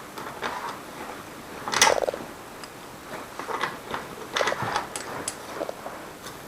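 Tools and small metal parts being handled: scattered clicks and knocks, with one louder metallic clank that rings briefly about two seconds in.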